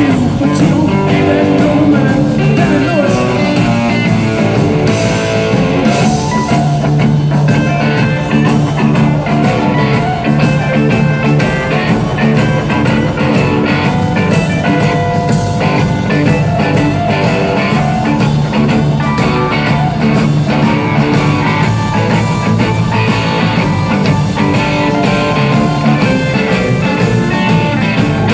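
Live blues-rock band playing loud: electric guitar, bass guitar, drums and keyboards.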